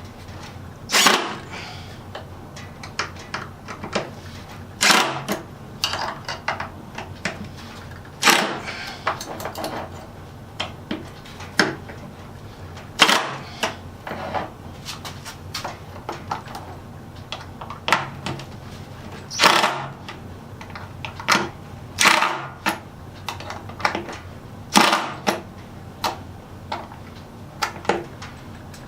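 Irregular sharp clicks and knocks of hand tools and metal hardware being worked while casters are fitted to a wooden toolbox, a louder knock every few seconds with small clicks between, over a steady low hum.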